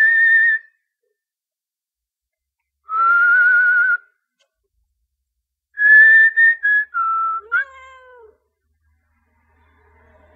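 A person whistling three short phrases: a steady high note, a lower wavering note, then a broken run of notes stepping down. Right after the last one, a cat gives one short meow that rises and then falls away, complaining at being woken.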